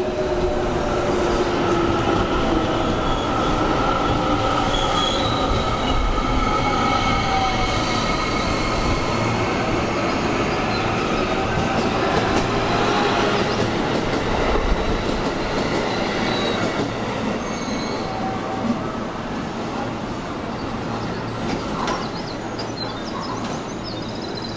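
Electric commuter train pulling into the platform and braking: wheels squealing over a running rumble, with tones gliding down in pitch at the start, and the noise slowly easing as the train slows.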